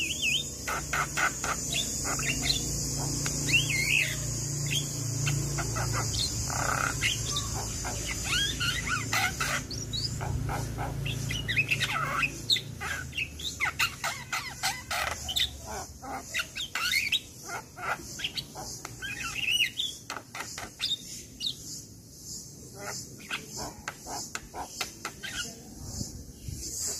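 Javan myna singing a busy, varied song of chirps, whistles and clicking notes, over a steady high insect buzz.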